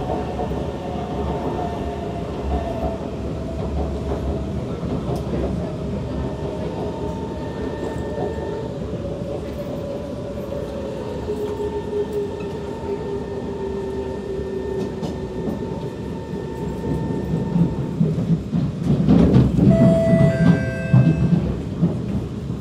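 Kawasaki C151 metro train running, heard from inside the car: steady wheel-on-rail rumble with the motor whine's tones slowly falling in pitch as the train slows. Near the end the wheels rattle and clatter louder as it runs into the station.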